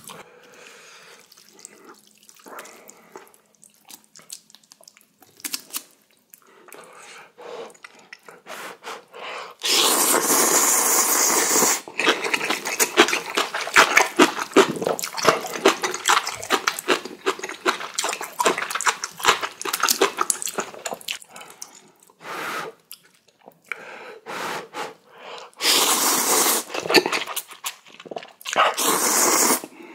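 A person slurping and eating spicy instant ramen noodles: long, loud wet slurps about ten seconds in and again near the end, with short wet chewing and mouth sounds in between.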